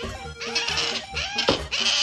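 Asian small-clawed otter giving high-pitched squeals twice, the begging call of an otter standing up for food, over background music.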